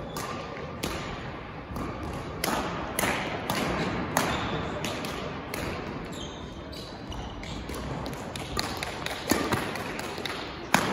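Badminton play: irregular sharp racket strikes on the shuttlecock, several a second at times, echoing in a large hall.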